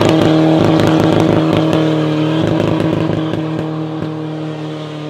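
BMW 1 Series diesel engine held at high, steady revs during a burnout with the rear tyres spinning. The engine note holds one pitch and fades over the last couple of seconds as the car moves away.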